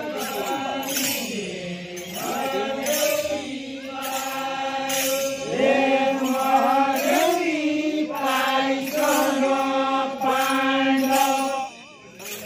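A line of men chanting a Deuda song in unison, in long drawn-out notes that slide between phrases. The singing breaks off about a second before the end.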